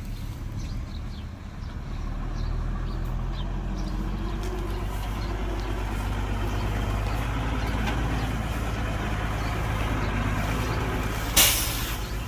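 Heavy diesel engine of a working dump truck or earthmover running steadily, getting louder about two seconds in. A short, loud hiss comes near the end.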